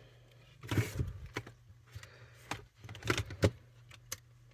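Clicks and knocks of a Sony ICF-2001 radio being handled, about six sharp ones plus a short rustle near the start, over a steady low hum.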